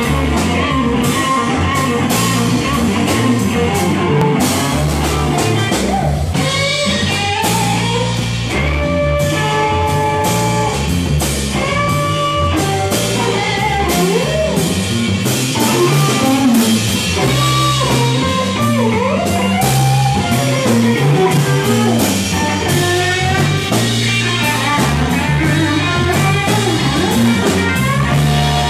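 Live blues-rock trio playing: an electric guitar lead with bent notes over electric bass and a drum kit.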